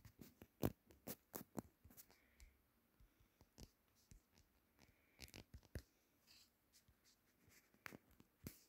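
Faint, irregular clicks and taps of a finger on a phone's touchscreen, some close together and some spaced out, with a louder one about two-thirds of a second in.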